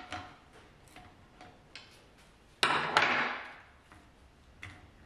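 Metal transmission parts being handled: light clicks and clinks, then a loud metallic clatter about two and a half seconds in that fades over about a second.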